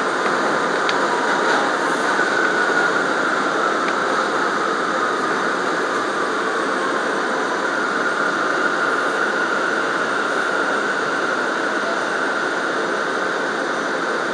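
R179 subway car running along elevated track, heard from inside the rear car: a steady rumble of wheels on rail with a faint high whine over it.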